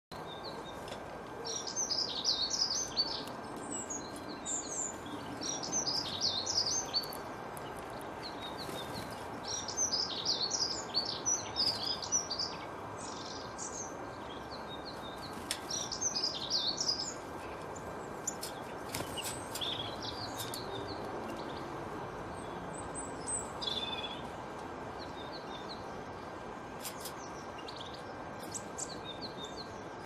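Songbird singing in bright, high phrases of about two seconds, repeated every few seconds through the first half, then only scattered chirps and short calls.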